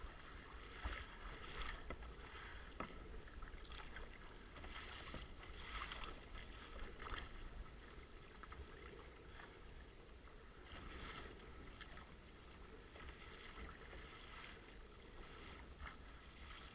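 Kayak paddle strokes and choppy water splashing and lapping against a sit-on-top kayak's hull, faint and irregular, the splashes coming about once a second at first and thinning later, over a low steady rumble.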